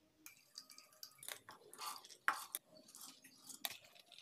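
Faint, scattered clicks and soft wet rattles of soaked lentils being scooped with a plastic scoop and tipped into a steel mixer-grinder jar.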